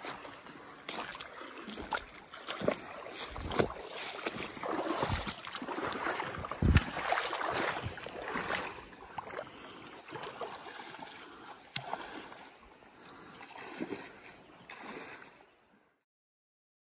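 Feet wading through a shallow, rocky river: uneven splashing steps and water sloshing around the legs. The sound stops abruptly near the end.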